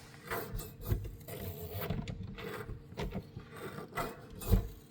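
Worn gas strut being pushed in and out by hand, with irregular rubbing and squeaking and fluid moving inside it, and a thump about four and a half seconds in. Fluid sound in a gas strut is not normal: the strut is leaking oil and failing.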